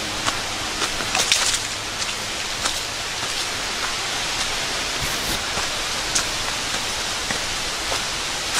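A hiker's footsteps crunching at a walking pace over a steady outdoor hiss.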